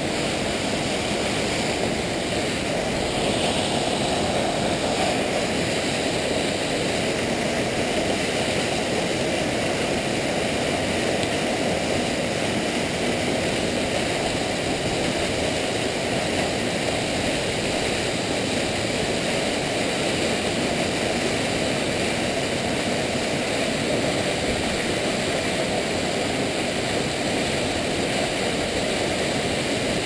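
Steady rushing of a nearby waterfall, a constant even noise with no breaks.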